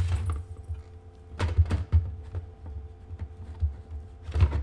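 Plastic parts of a small digital incubator being pushed and worked together by hand, giving a few dull knocks and clicks in irregular clusters over low handling bumps. A faint steady hum runs underneath.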